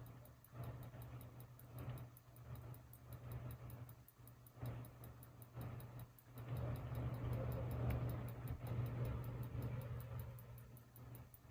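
Hampton Bay Minuet II ceiling fan running on high speed, a steady hum with an even ticking of about five a second, over swelling whooshes of noise. The fan is wobbling.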